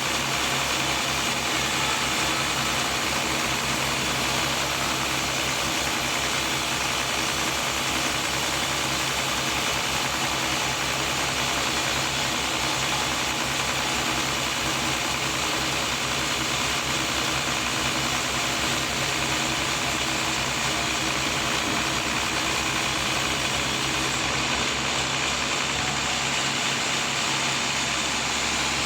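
Sawmill machinery running steadily: a continuous engine-like drone with a dense hiss on top, easing slightly near the end.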